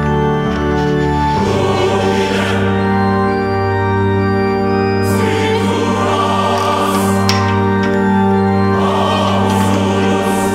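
Background music of slow, sustained chords, changing about a second and a half in, with swells that rise and fade a few times.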